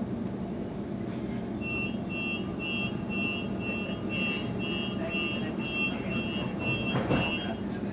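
Sydney suburban train's door-closing warning, a high two-tone beep repeating about twice a second, starting a second and a half in and running for about six seconds, over the steady hum of the stopped train. A single thump sounds near the end.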